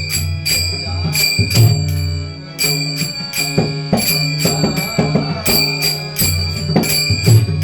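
Instrumental passage of a Marathi Varkari bhajan: small brass hand cymbals (taal) struck in a quick, steady rhythm and ringing over sustained low notes, with drum strokes.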